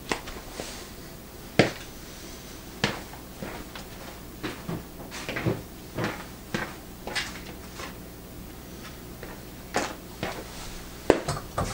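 Egg frying in oil in a small non-stick pan on a gas burner: irregular sharp pops and crackles, one or two a second, over a faint steady background.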